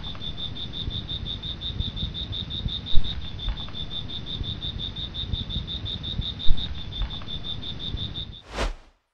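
Steady, rapid chirping of a cricket-like insect, about six chirps a second, over a low rumble broken by three dull thumps. Near the end a short whoosh rises and falls, then the sound cuts off.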